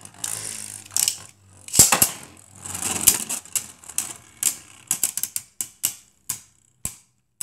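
Two Beyblade spinning tops battling in a plastic stadium. First comes a rasping whir with several loud clacks as they collide. Then come separate sharp clicks, a few a second, that thin out and stop as the contact dies down.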